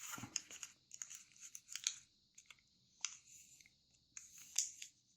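A square sheet of origami paper being folded and creased by hand: faint rustles and crisp crackles in short bursts, the loudest about three and four and a half seconds in.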